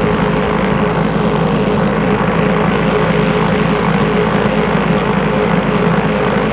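Electric car polisher running steadily with an even hum, its upturned wool pad spinning pool balls around a towel-lined bucket to polish them.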